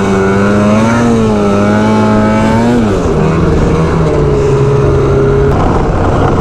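Snowmobile engine running under way, its pitch rising a little about a second in, falling off near three seconds, and stepping down again shortly before the end.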